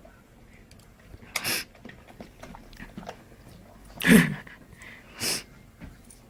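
A dog making three short breathy sounds, the loudest about four seconds in.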